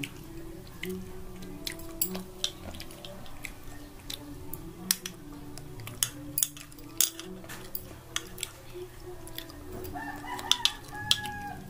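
Metal chopsticks clicking against a ceramic bowl while eating, with a rooster crowing in the background about ten seconds in.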